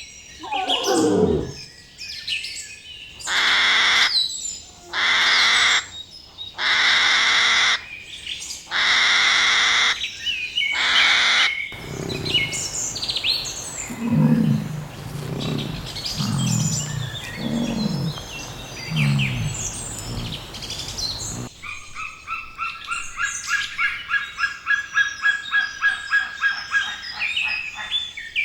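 A run of different animal calls, bird chirping among them. First comes a series of about five one-second calls, then chirps over a string of low, short calls, and finally a rapid call repeated about four times a second.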